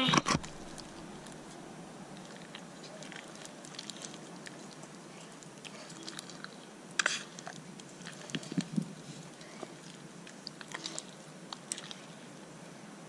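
Homemade glitter slime squeezed and kneaded by hand in a plastic tub, giving scattered sticky clicks and small pops. The loudest comes about seven seconds in, with more bunched near the end.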